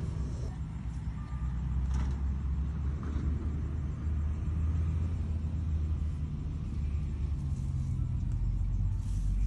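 Airplane passing overhead: a steady, low rumble.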